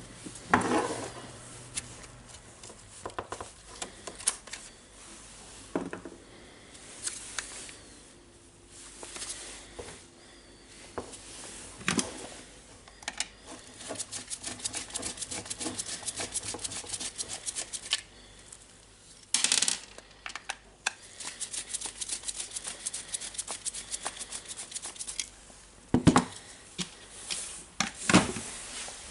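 Hand work on a DeWalt D25003 rotary hammer drill: scattered clicks and knocks of tools and parts being handled, with two stretches of rapid, even clicking, one about halfway through and one later on.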